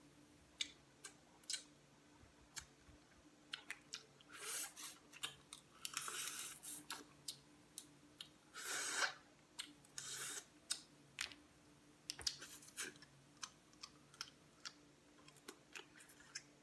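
Boiled crawfish being peeled by hand close to the microphone: the shells crack and snap in many short sharp clicks, with a few longer crackling spells around the middle.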